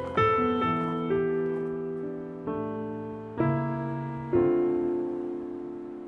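Background music: a piano plays five slow chords, each struck and left to ring and fade. It is an instrumental passage of a Korean worship song, with no singing.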